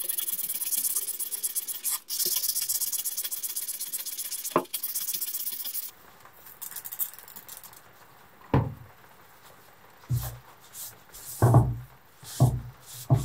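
Rapid, scratchy scrubbing on the rusty cast-iron base of an old balance scale, stopping abruptly about six seconds in. Later come several dull knocks as the heavy metal base is handled and wiped on a wooden bench.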